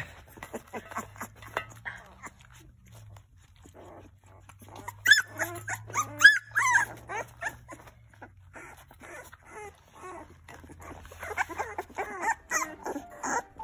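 Young puppies whimpering in short high-pitched cries, in a cluster about five to seven seconds in and again near the end.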